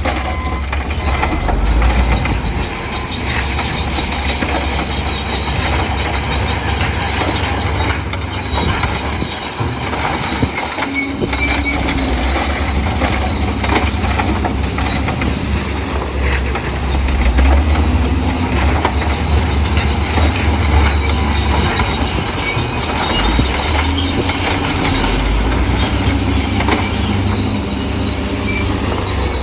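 Crawler bulldozer working rock fill: its diesel engine runs with a deep rumble under a constant metallic scraping and clatter of steel tracks and rock. The engine eases off briefly about ten seconds in, then picks up again.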